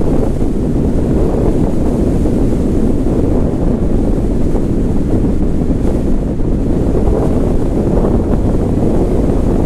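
Loud, steady wind buffeting the microphone of a camera mounted outside a moving car, a continuous low rumble with no break.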